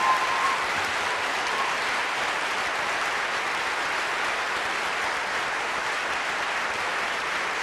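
An audience applauding steadily, a dense even clapping with no break.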